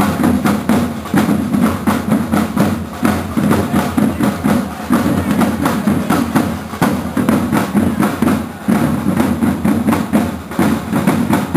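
Drum corps of a flag-waving group playing parade drums: a loud, steady, repeating marching rhythm of dense strokes.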